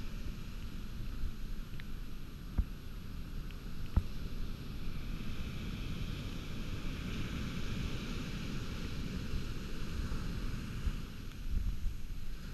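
Surf washing up a sandy beach, with wind buffeting the microphone; the hiss of the wash swells in the middle. Two short knocks about two and a half and four seconds in.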